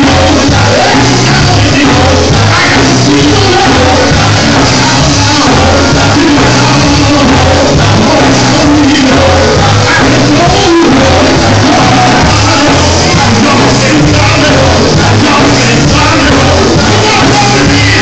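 Live gospel quartet music, loud throughout: a lead singer on a microphone over electric guitar and a steady bass line.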